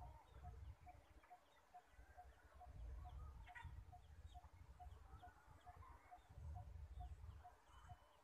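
Faint outdoor ambience: a small high chirp repeats evenly, nearly three times a second, with scattered short chirps of birds or insects above it, over a low rumble of wind or handling on the microphone.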